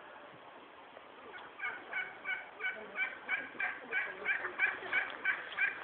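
Domestic fowl calling: a run of short, evenly repeated calls, about three a second, that starts a second and a half in and grows a little louder.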